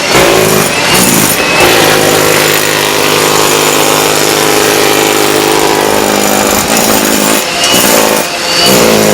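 Loud construction-site machinery noise from Caterpillar heavy equipment working close by. A diesel engine drones steadily through the middle, and the noise is rougher and more uneven at the start and near the end.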